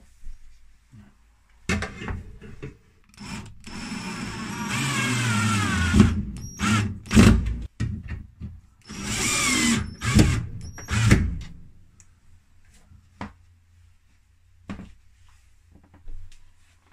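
Parkside cordless drill-driver driving screws through a metal drawer runner into a wardrobe's particleboard side panel: two longer runs of motor whine that wavers in pitch, with short bursts between, then a few light clicks and knocks near the end.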